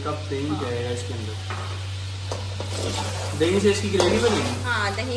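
Chicken pieces sizzling in a metal karahi as a slotted metal spatula stirs them, with a few knocks of the spatula against the pan.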